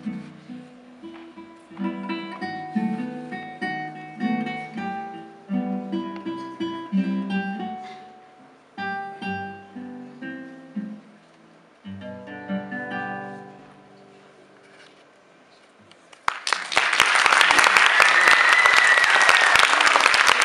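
Solo classical guitar, fingerpicked, playing the last phrases of a piece; the final notes die away about two-thirds of the way in. A few seconds later an audience breaks into applause, which is the loudest sound and carries on to the end.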